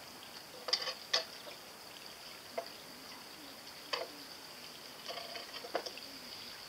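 Light plastic clicks and taps from a small homemade toy foil kayak as its hull and thin struts are handled. A handful of separate clicks come at irregular intervals.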